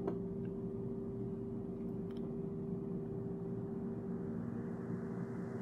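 Steady low room hum with a faint steady tone running under it, and a couple of faint ticks.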